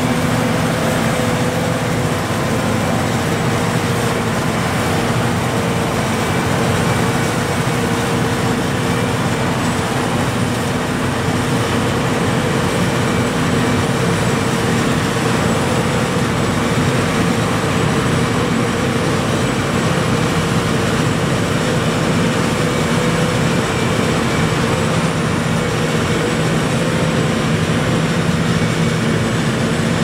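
John Deere self-propelled forage harvester running steadily as it chops maize, a constant machinery drone with a steady hum, with tractors running alongside.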